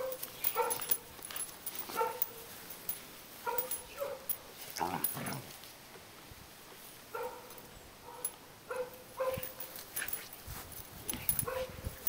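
Berger Picard puppies play-fighting, giving short high-pitched yips and whines, about a dozen scattered at irregular intervals, with light scuffling between them.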